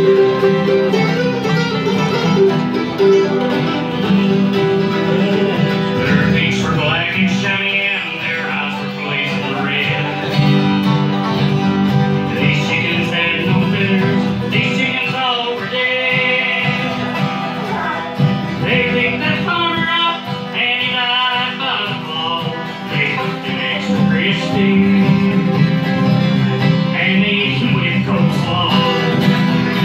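A live acoustic bluegrass band playing: flat-top guitars, five-string banjo, mandolin and upright bass, with a melodic lead line coming in over the rhythm after a few seconds.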